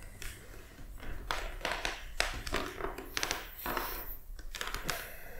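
Rustling and soft taps of a person shifting position on a yoga mat: clothing brushing, and hands and feet touching the mat in a string of short, irregular sounds.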